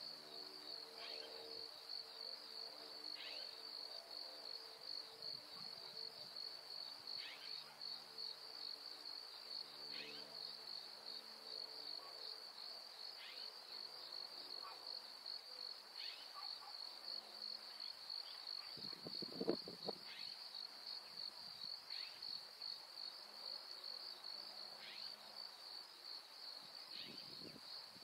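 Faint, steady high-pitched trilling of insects, with a short falling chirp every two to three seconds and a single soft knock about two-thirds of the way through.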